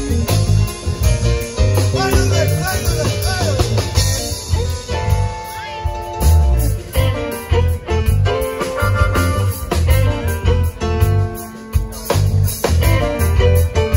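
Live rock band playing between sung verses: electric guitars, bass and drum kit, with a lead line that bends in pitch early on and held notes later.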